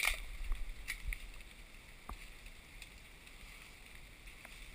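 Handling noise: a sharp click at the start, then a few faint ticks and rustles over a low steady rumble of wind on the microphone.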